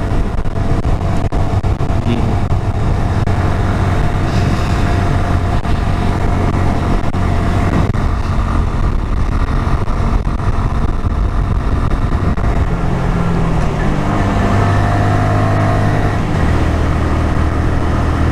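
Honda MSX125SF Grom's 125cc single-cylinder four-stroke engine pulling under load up a long hill, with wind rushing past. The engine note shifts about three-quarters of the way through.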